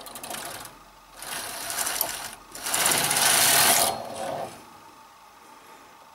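Carriage of a Singer SK 280 double-bed knitting machine run across the needle beds from left to right, knitting a row of the 1x1 rib cast-on: a rattling whir in three pushes, the third and loudest about three seconds in, then it stops.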